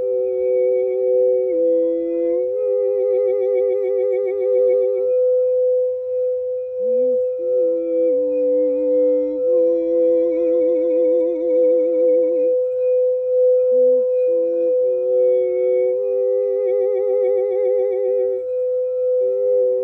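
A singing bowl rings a steady sustained tone throughout. Beneath it, a voice hums a slow wavering melody in phrases of a few seconds, with vibrato and short sliding notes.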